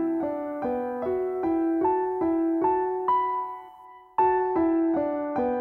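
Background music: a keyboard plays a gentle, evenly paced run of notes, about two and a half a second. It fades almost out about three and a half seconds in, then resumes with a sharp new note about half a second later.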